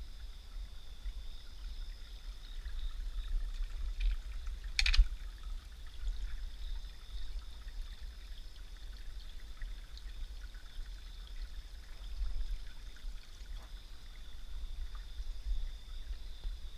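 Creek water trickling over rocks, with a steady high-pitched drone above it and a sharp knock about five seconds in.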